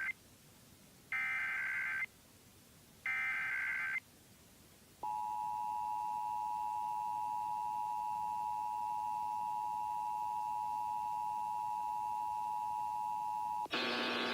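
Emergency Alert System SAME header: one-second bursts of warbling digital data tones, a second apart, then the EAS two-tone attention signal, held steady for about nine seconds, that opens a Required Monthly Test. A loud rush of noise cuts in near the end.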